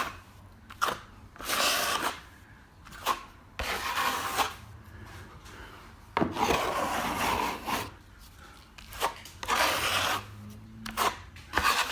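A plastering trowel polishing freshly set cornice cement on a ceiling, drawn across the surface in a series of long scraping strokes of about a second each with short pauses between, and a few light clicks of the blade.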